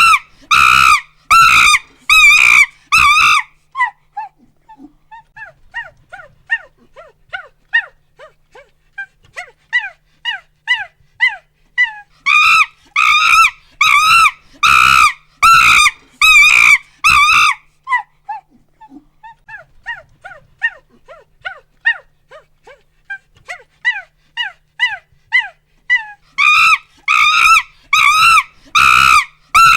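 Monkey calls: runs of loud, high screams alternating with stretches of quieter, short rising hoots that build back up into the screaming, the cycle coming round about every fourteen seconds.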